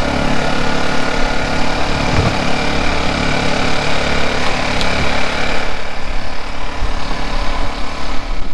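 Small petrol generator powering an electrofishing rig, running steadily at an even speed.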